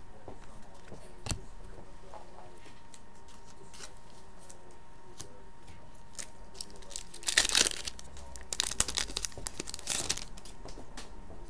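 A trading card pack's wrapper being torn open by hand: a loud rip about seven seconds in, then more tearing and crinkling a second or two later.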